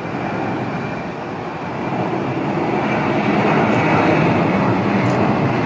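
Jet airliner's engines passing: a steady rushing noise that swells to its loudest about four seconds in and eases near the end.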